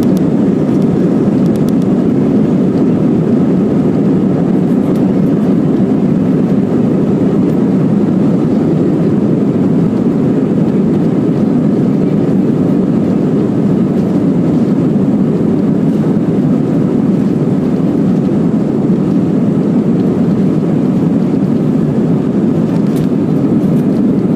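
Airbus A320 engines and airframe heard from inside the cabin during the takeoff roll: a loud, steady rumble as the jet runs down the runway.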